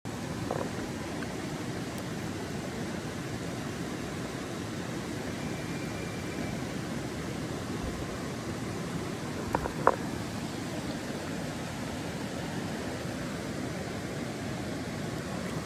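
Small trout stream rushing over rocks, a steady hiss of flowing water. Two short knocks come about ten seconds in.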